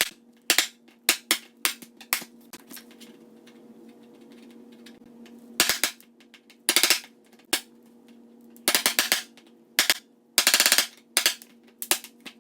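Hammer striking a wood chisel into a wooden strip to split it off: sharp knocks at irregular intervals, some single and some in quick runs of several taps.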